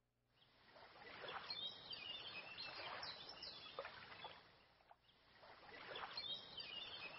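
Faint outdoor ambience: a soft wash of water-like noise that swells twice, with birds giving short, high, falling calls over it.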